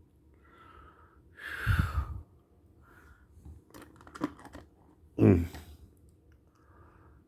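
A loud breath out, then a quick cluster of light clicks from small assembly hardware being handled, and a short hummed 'mm-hmm' about five seconds in.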